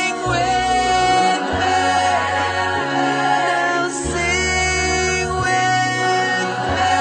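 Song with sung vocals over sustained bass notes that change about every second and a half.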